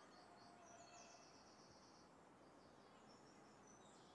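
Near silence: faint outdoor ambience with repeated high chirping.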